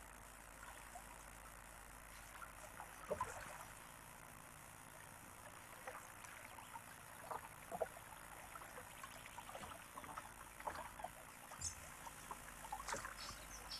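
Kayak paddle strokes in creek water: faint, irregular splashes and drips every second or so, the loudest about three seconds in.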